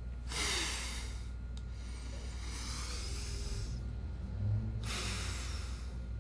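A man breathing heavily in bed: three long, noisy breaths, with a soft low thump about four and a half seconds in.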